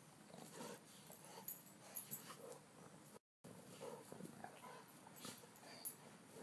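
Two dogs play-wrestling: faint grunts, snuffles and scuffling with a few sharp clicks. The audio drops out completely for a moment about three seconds in.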